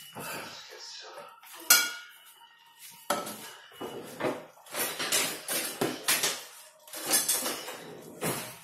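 Wooden spoon working spaghetti in a metal pan, then a sharp clack about two seconds in, likely the spoon being set down against the pan. From about three seconds in comes repeated clattering of kitchenware being handled.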